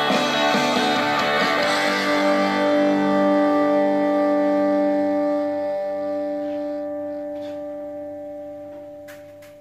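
Guitar music playing from a USB player through a vintage Mecca 8-track car stereo converted into an integrated amplifier. The last held chord rings on and fades away over the final few seconds.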